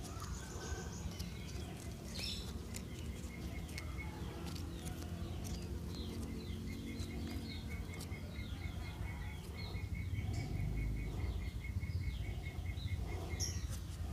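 Small birds chirping in short, repeated falling notes, joined in the second half by a fast, even run of high pips. A low rumble grows louder near the end, with a few light clicks.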